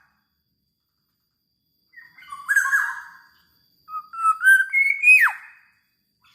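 Black-naped oriole (kepodang) singing two loud, fluting whistled phrases, one about 2 s in and another about 4 s in; the second ends in a sharp downward slur.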